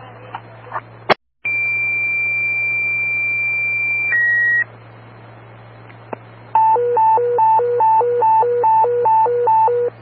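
Fire dispatch paging tones heard over a radio scanner: a squelch click, then a steady high tone for about two and a half seconds that steps down to a slightly lower tone for half a second. After a pause, a high-low alert tone alternates about eight times, toning out a fire company ahead of a dispatch.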